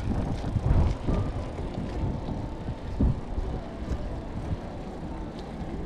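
Riding noise of a mountain bike rolling along a paved path, picked up by a handlebar-mounted camera: a steady low rumble of tyres and wind on the microphone, with a couple of knocks from bumps about a second and about three seconds in.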